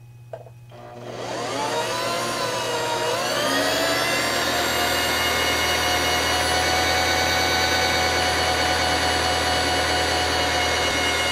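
Singer Simple sewing machine's electric motor driving the bobbin winder, with the needle disengaged. The whine starts about a second in, rises in pitch with a brief waver as the pedal is pressed down, then holds steady at full speed while thread winds onto the bobbin.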